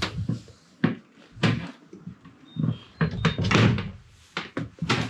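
A door being handled in a small room: a run of sharp knocks and clunks, with the busiest cluster about three to four seconds in.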